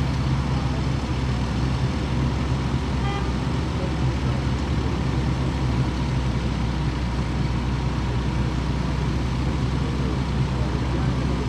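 Heavy diesel engine of a loaded concrete mixer truck running steadily at a low, even pitch.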